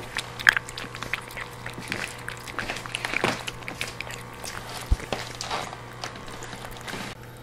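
A cat eating wet food from a metal bowl: quick, irregular wet chewing and lapping clicks.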